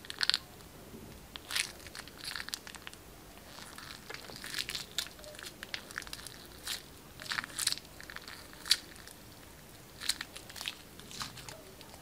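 Plastic piping bag crinkling and crackling as a hand squeezes it, pushing out liquid full of tiny beads: irregular short crackles and squishy clicks in small clusters.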